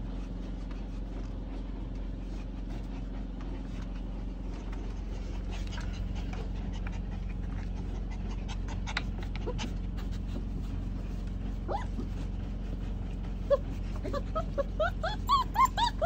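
Young Australian Shepherd puppies whimpering and yipping in a run of short, high squeaks over the last few seconds. Before that there are scattered small clicks and scratches as the puppies paw and chew at a canister vacuum cleaner.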